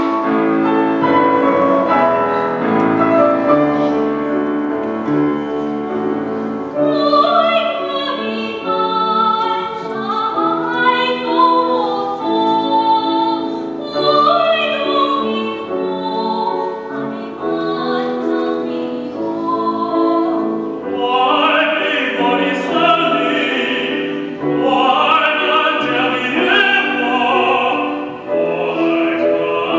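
Grand piano introduction, then a woman singing in operatic style with a wide vibrato over the piano accompaniment. About two-thirds of the way through, a man's classically trained voice takes over the line, still with piano.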